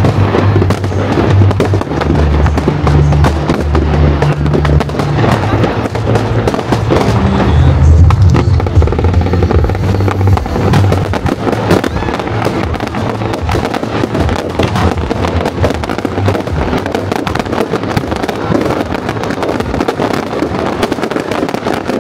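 A fireworks display, with a rapid, continuous run of bursts and crackles. Music plays underneath, with held bass notes through roughly the first half.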